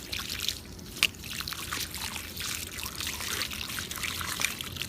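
Water from a hose trickling and splashing over small plastic toys, with a sharp tick about a second in.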